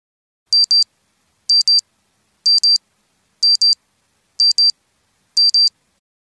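Digital timer alarm beeping: six quick double beeps, one pair a second, on a high tone. It signals that the 25-minute countdown has run out.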